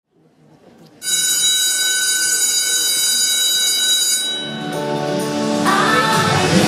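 Recorded electronic dance music played over a hall's loudspeakers. A bright, high, sustained electronic chord comes in suddenly about a second in, and lower synth notes take over from about four seconds.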